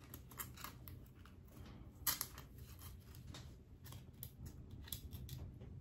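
Faint irregular rustling and clicking as fingers work through wig hair and handle a small hand mirror, with a sharper click about two seconds in.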